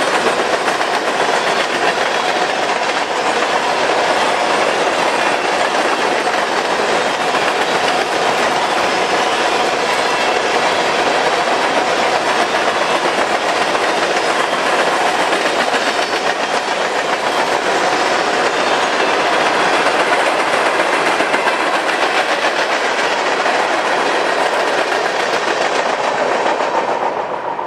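Freight train cars rolling past, their wheels making a steady clickety-clack over the rail joints; the sound fades away near the end.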